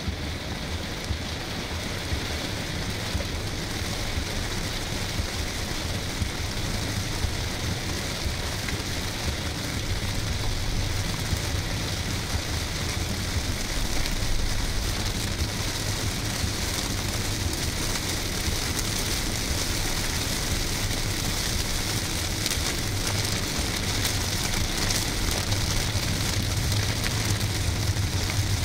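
Torrential rain pelting the roof and windscreen of a car, heard from inside the cabin as a dense, steady hiss of drops, over the car's low, steady running rumble. It grows a little louder about halfway through.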